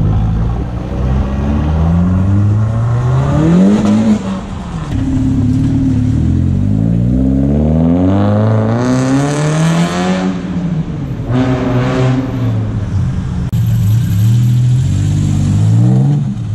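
Cars pulling away one after another on a cobbled street, their engines revving up. Each engine note climbs in pitch and drops back, three times over.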